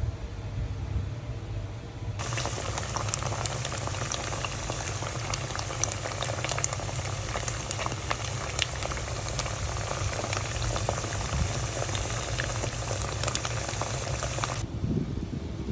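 Food cooking on the stove, a dense bubbling and crackling that starts about two seconds in and cuts off sharply near the end, over a steady low hum.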